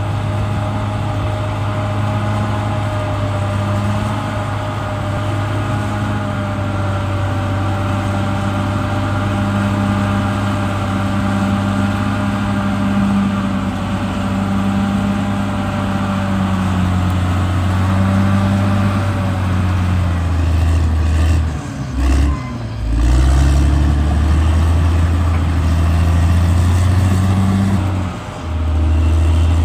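CAT D6R XL bulldozer's diesel engine running steadily under work. About two-thirds of the way through its pitch drops and the low rumble gets louder, with two short dips in the sound near the end.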